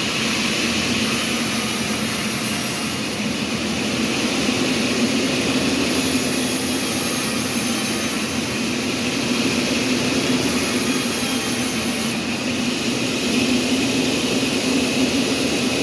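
Sawmill machinery running steadily: a constant low hum under a loud, even rushing noise.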